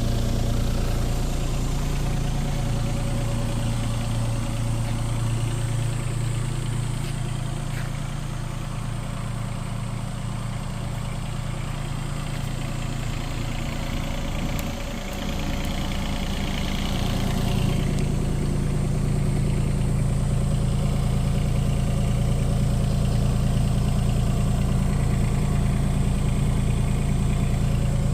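Yanmar ViO20 mini excavator's diesel engine running steadily, easing off and shifting in pitch for a few seconds past the middle, then settling back to a stronger, even hum.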